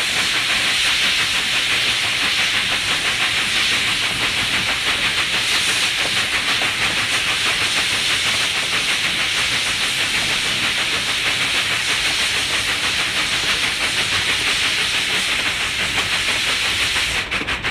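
Narrow-gauge steam train running, heard from an open car: a loud, steady hiss of steam and motion with a faint rapid pulsing that grows stronger near the end.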